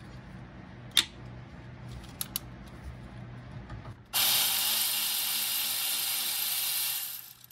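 Power ratchet spinning out the bottom mounting bolt of a clutch slave cylinder: a steady hiss of about three seconds that starts a little past halfway and cuts off abruptly. A single sharp click comes about a second in.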